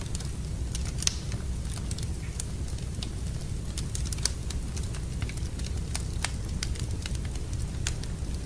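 Wood fire in a fireplace crackling, with irregular sharp pops and snaps over a steady low rumble; one louder pop about a second in.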